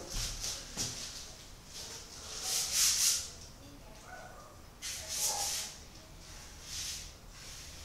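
A few short swishes of a paintbrush, worked in a paint can and then dragged through black paint across a large stretched canvas.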